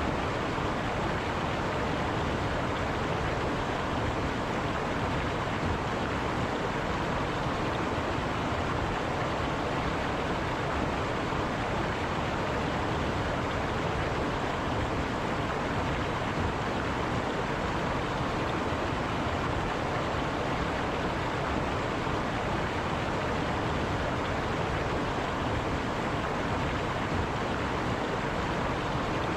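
River water running over rocks, a steady, even rush with no change.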